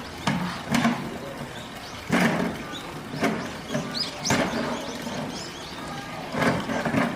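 Zoo enclosure ambience: indistinct voices of onlookers with a few short bird chirps about four seconds in, and some sharp knocks.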